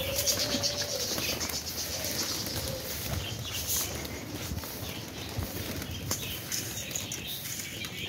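A flock of pigeons flapping and fluttering their wings as they gather to feed on scattered grain, a busy, continuous rustle of wingbeats.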